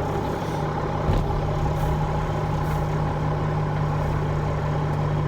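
Dump truck's diesel engine running steadily with a constant hum while it powers the hydraulic hoist to dump a load of asphalt millings. There is a single light knock about a second in.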